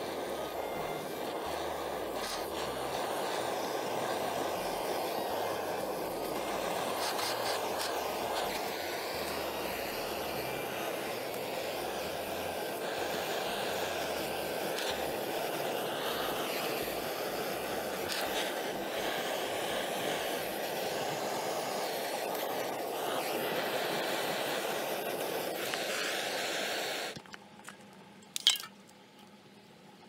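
Handheld butane gas torch burning with a steady rushing flame noise as it scorches a PVC pipe, shut off about three seconds before the end, followed by a single sharp click.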